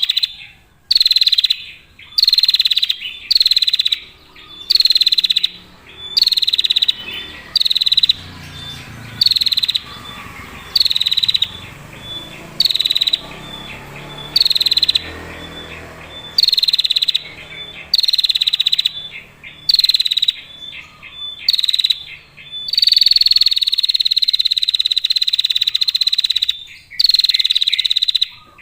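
Female prinia (prenjak) giving loud, buzzy trilling calls over and over, about one a second and each about half a second long, then one unbroken trill lasting several seconds near the end.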